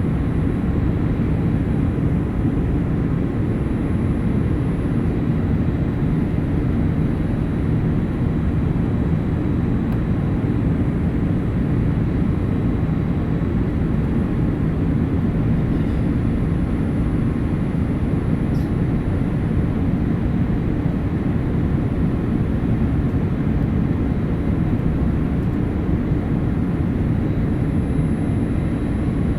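Steady cabin noise inside a Boeing 787-8 Dreamliner with GEnx-1B engines: an even, unchanging drone of engine and airflow, heaviest in the low range, with faint steady whines above it.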